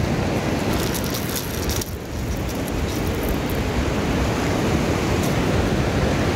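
Wind buffeting the microphone over the steady wash of surf. Brief light clicks and rustles between one and two seconds in, from a treble-hooked minnow lure being worked out of a sea bass's mouth.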